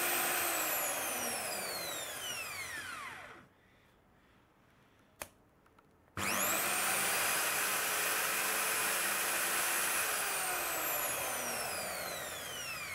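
Bosch CSB 350-2 corded hammer drill running free with no load. The trigger is released and the motor's whine falls away as it winds down; after a single click it is started again at full speed, then winds down again near the end. It is being test-run after its repair.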